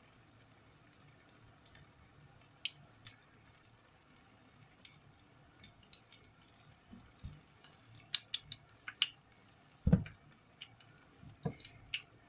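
Spring rolls shallow-frying in hot oil in a frying pan: irregular crackles and small pops of spattering oil over a faint sizzle, with a couple of louder soft knocks near the end.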